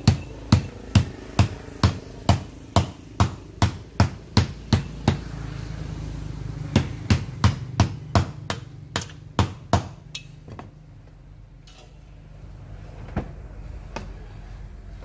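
Repeated sharp knocks at about two to three a second, like hammer blows, over a low steady hum. They pause briefly about five seconds in, resume at a quicker pace, then thin out to a few scattered strikes near the end.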